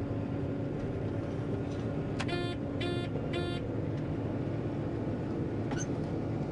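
Steady drone of a John Deere 9500 combine heard inside the cab, with three short electronic beeps a little over two seconds in.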